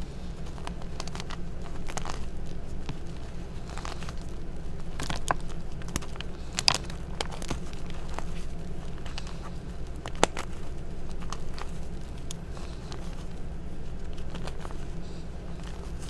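Hands squeezing and crumbling pieces of re-formed gym chalk in a bed of chalk powder: a run of irregular crunches and crackles, with a couple of sharper snaps near the middle.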